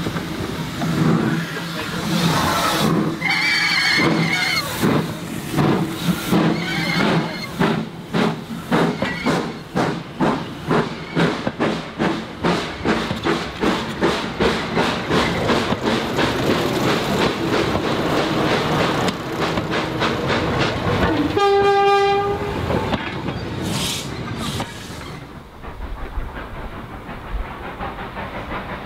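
Steam-hauled train passing slowly, with a steady run of regular beats and wheel clicks over the rail joints and a brief high squeal about four seconds in. A single short train whistle blast sounds about 21 seconds in, then the train sound falls away to a quieter background.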